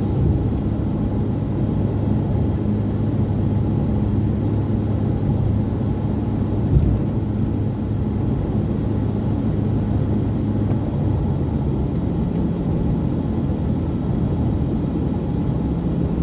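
Car driving at a steady speed: engine hum and road rumble, with one short knock about seven seconds in and a slight change in the engine note a little past halfway.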